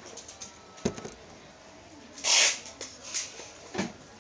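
A parcel being handled and opened: a few sharp clicks and knocks of packaging, and a short loud scratchy noise of packing material a little over two seconds in.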